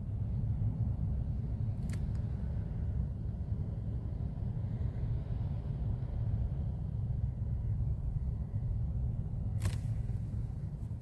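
Low, steady rumble of gale-force wind buffeting the truck and microphone, heard from inside the cab, with two sharp clicks, one about two seconds in and one near the end.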